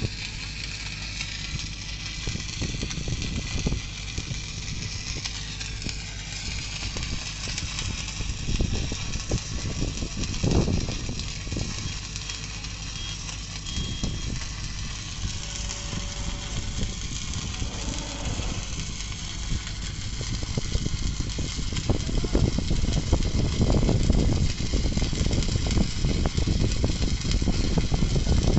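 Stick-welding arc on steel pipe, a cellulose-coated electrode (6010 or 7010) burning downhill with a steady hiss and irregular crackle. It grows louder in the last third.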